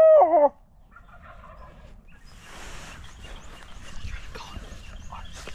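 The long, drawn-out final note of a barred-owl hoot, held steady and then falling away: a hunter's locator call to draw a shock gobble from turkeys. It is followed by faint, distant turkey gobbling.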